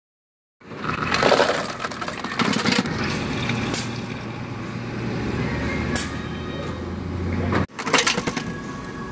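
Self-serve soda fountain pouring a drink into a paper cup: liquid splashing over a steady low machine hum that stops suddenly, followed by a few knocks as the cup is handled.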